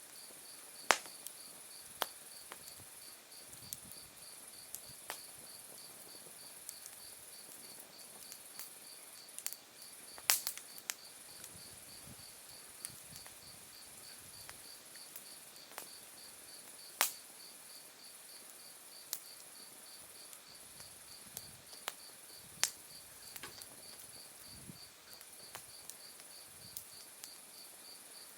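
Autumn crickets and other night insects calling steadily: one high, continuous trill and one evenly pulsing chirp. Over them, an open wood fire crackles with sharp pops now and then, the loudest about a second in, near ten seconds and near seventeen seconds.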